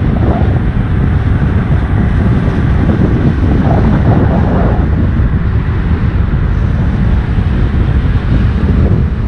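Heavy wind buffeting on the microphone over a steady low rumble, with no clear pitch.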